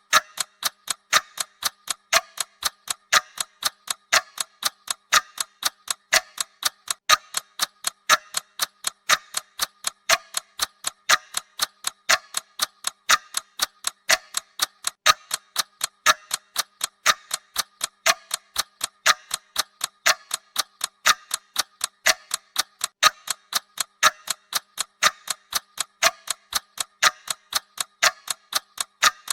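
Clock-style ticking of a countdown timer: a steady, even run of sharp ticks, several a second.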